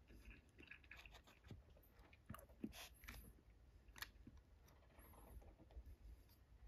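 Faint chewing of sushi, with scattered small clicks as wooden disposable chopsticks pick up a nori roll from a thin wooden bento box. The sharpest clicks come between about two and four seconds in.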